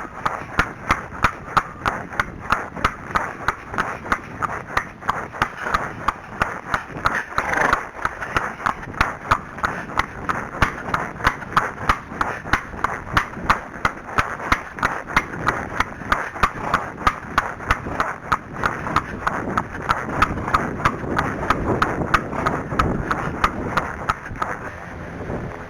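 Arabian horse's hooves at a trot, a steady even beat of about three footfalls a second. Wind rumbles on the microphone underneath, growing stronger near the end.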